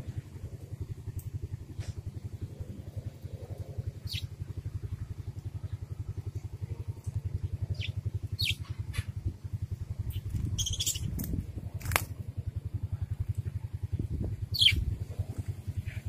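Budgerigars giving several short, high chirps over the steady, fast-pulsing low hum of an engine running in the background.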